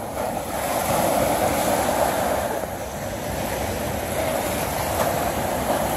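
Small waves breaking and washing up onto a sandy shore, a rushing surf that swells about a second in, eases, then builds again.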